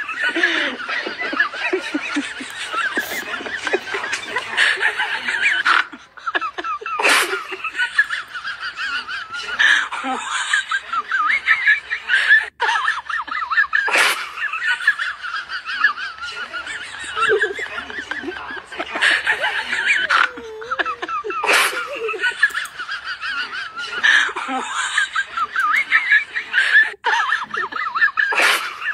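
Laughter runs without a break: several voices laughing, snickering and chuckling over one another, with a sharp click every few seconds.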